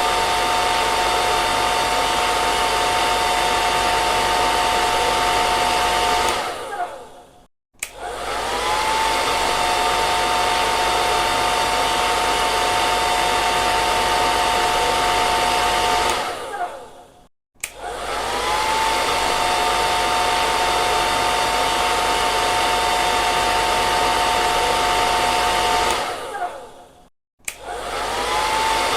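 Hair dryer running with a steady rush of air and a high motor whine, switched off and back on three times. Each time it winds down to a moment of silence, then spins back up with a rising whine.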